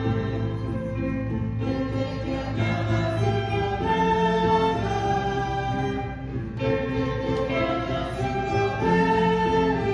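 Choir singing sustained chords with orchestral accompaniment, the chords changing every couple of seconds.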